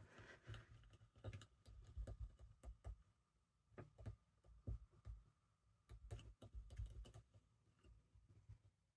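Faint, irregular small taps and clicks with soft knocks on the tabletop: a craft stamp being handled, inked and pressed onto paper.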